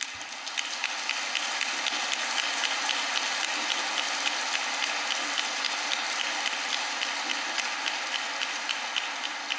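Audience applauding: a steady patter of many hands clapping that swells in at the start and eases off slightly near the end.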